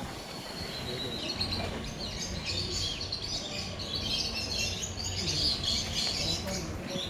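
Many small birds chirping and calling at once: a dense, overlapping chatter of high chirps.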